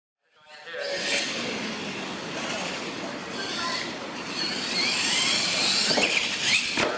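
Radio-controlled monster truck's electric motor whining, rising and falling in pitch as it is driven, with tyre and running-gear noise on a concrete floor; a couple of sharp knocks near the end as it goes over ramps. Silent for about the first half-second.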